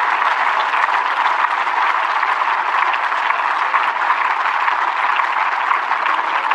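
Tennis crowd applauding steadily: many hands clapping together.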